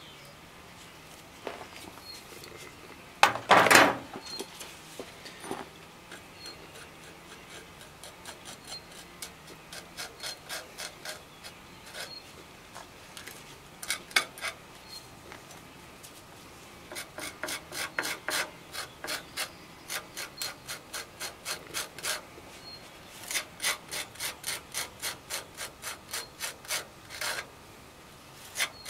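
Putty knife scraping and folding a dab of two-part chemical anchoring resin and hardener on a wooden board, in short repeated strokes that grow regular and quicken to about three a second near the end. A loud clatter about three seconds in.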